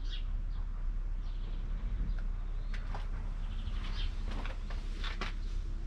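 Birds chirping now and then over a steady low rumble, with a few short clicks.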